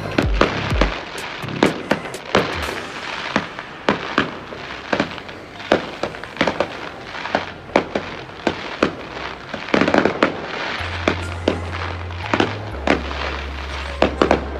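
Aerial fireworks bursting: a string of sharp bangs at irregular intervals, thickest about ten seconds in, over music with deep bass notes.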